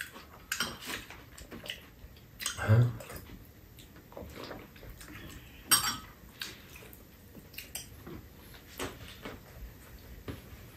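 Chopsticks and spoons clinking and tapping against ceramic bowls and a metal tray table during a meal, a scatter of light clicks with a short thud nearly three seconds in.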